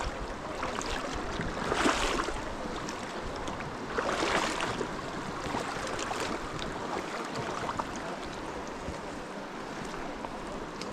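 River water rushing steadily, with two louder swishes about two and four seconds in.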